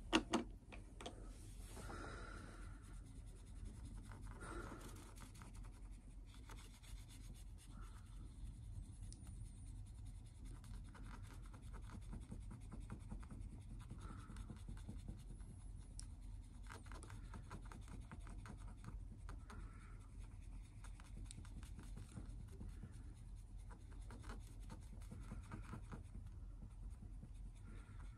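A solvent-soaked cotton swab scrubbing old varnish off a veneered wooden music-box lid: faint, rapid, steady scratching in small strokes. One sharp tap right at the start.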